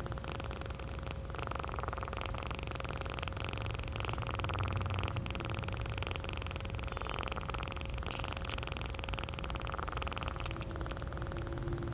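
A kitten purring steadily, the purr swelling and easing about every two seconds as it breathes in and out.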